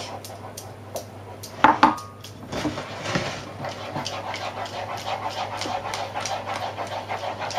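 Wooden spoon stirring thick custard and egg yolks in a saucepan, in quick even strokes about four a second. A little under two seconds in, a ceramic bowl is set down on the tiled counter with a sharp knock and a brief ring.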